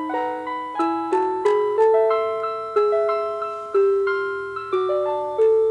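Seiko Disney Mickey Mouse alarm clock playing one of its built-in Disney tunes as an electronic chime melody. Each note is struck and dies away, in chords of several tones, about two to three notes a second.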